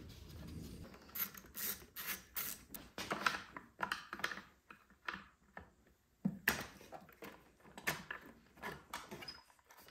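Irregular clicks, taps and light knocks of hand tools and plastic parts as a generator's air box and carburetor are being taken off.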